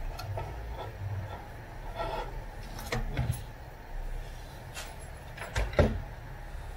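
Wires and plastic connectors being handled on a wheelchair electric drive unit: scattered clicks and knocks against the frame, over a low steady rumble, the loudest a knock near the end.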